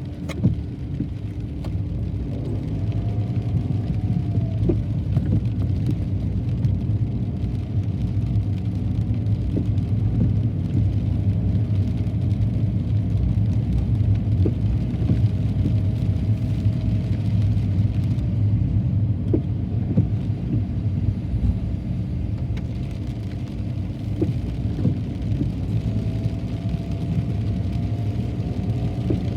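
Car driving on a rain-wet road: a steady low rumble of engine and tyres, with a faint whine that rises and falls now and then.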